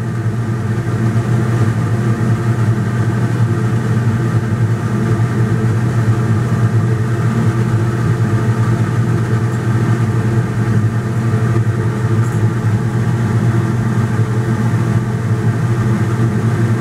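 Steady machine hum: a strong low drone with a stack of even overtones above it, holding at one pitch and level.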